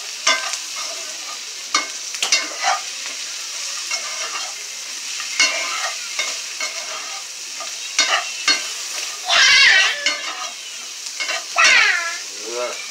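Chicken pieces and seasonings sizzling steadily in oil in a cast-iron skillet, with the scrape and clink of a metal spoon against the pan each time the food is stirred and turned. Near the end, two short, high, wavering calls sound over the frying.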